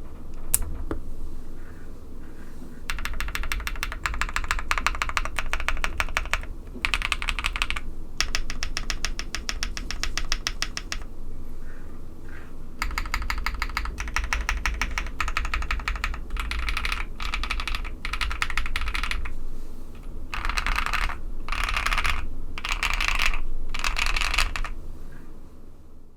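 Typing on a Tofu65 custom mechanical keyboard with lubed KTT Strawberry linear switches on a polycarbonate plate. The keystrokes come in quick runs of several seconds each, with short pauses between the runs.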